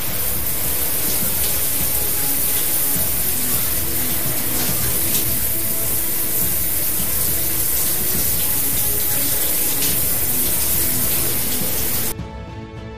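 Shower spray hissing steadily over background music, cutting off abruptly near the end.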